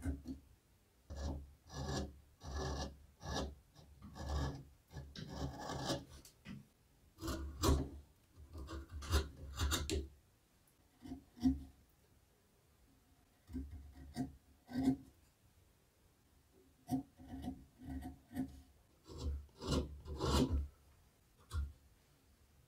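Small hand carving gouge pushed through wood: a run of short scraping cuts in irregular bursts, with a pause of a few seconds about halfway.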